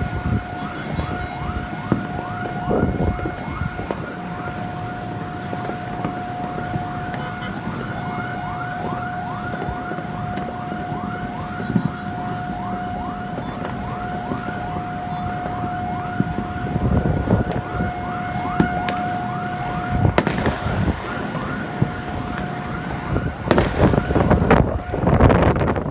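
A siren-like whooping, quick pitch sweeps repeating about three times a second over a steady held tone, stops about twenty seconds in. Fireworks bangs and crackling follow in the last few seconds.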